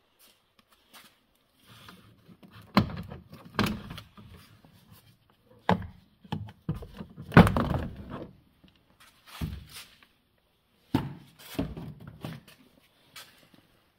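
Interior door trim and armrest being taken off a car door: an irregular series of sharp knocks, clicks and thunks of plastic and metal, the loudest about seven and a half seconds in.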